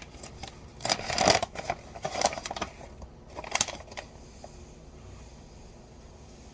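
Seasoning being refilled by hand: short bursts of rustling and crackling with small clicks, in three spurts about one, two and three and a half seconds in, then only faint handling.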